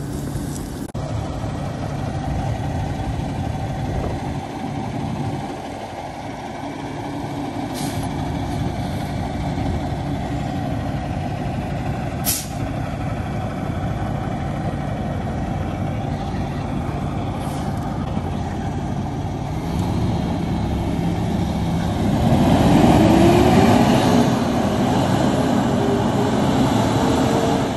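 Heavy tow truck's 605 Cummins diesel engine running at low revs as the truck moves off slowly, with a few brief sharp hissing sounds in between. About 21 seconds in the engine pitch rises as it accelerates; this is the loudest part.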